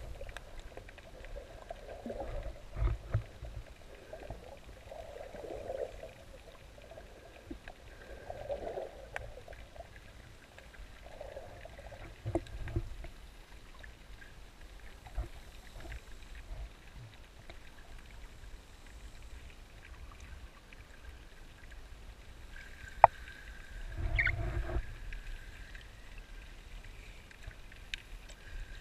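Muffled water movement heard underwater, with low swells every few seconds. A sharp click comes about 23 seconds in, and a louder swirl of water follows a second later.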